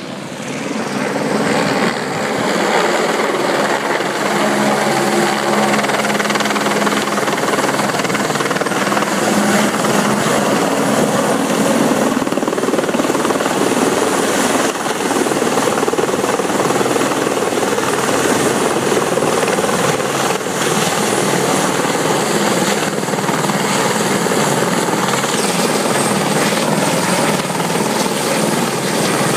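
Light single-engine helicopter hovering low, its water bucket slung on a line below: steady rotor and turbine noise that swells over the first couple of seconds as it comes in, then holds, with a thin high whine added near the end.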